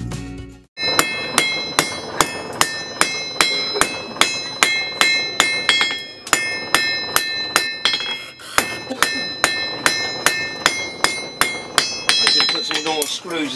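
Blacksmith's hand hammer forging metal on an anvil: a steady run of blows, about three a second, each leaving a bright metallic ring from the anvil.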